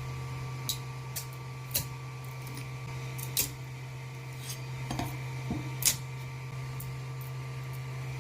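Steady machine hum with light clicks and clatters of small hard plastic parts being handled, two of them louder about three and a half and six seconds in.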